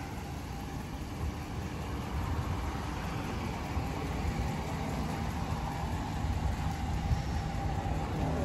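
A vehicle engine idling steadily with a low rumble.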